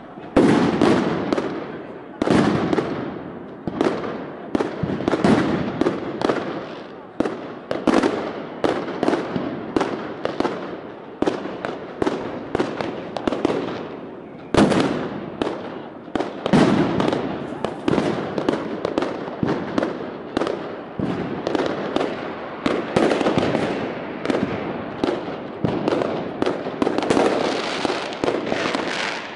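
Consumer fireworks and firecrackers going off in rapid, overlapping succession: a dense run of sharp bangs, each with a trailing echo, several louder blasts among them.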